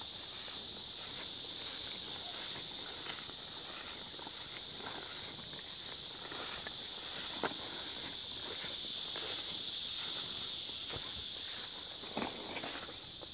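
Steady high hiss of summer insects, with faint footsteps and rustling as someone walks through low weeds and undergrowth, a little more distinct near the end.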